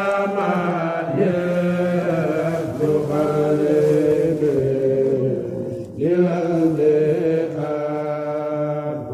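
Unaccompanied Mouride khassida chanting by male voices of a kourel, in long held notes, with a brief break about six seconds in before the next phrase begins.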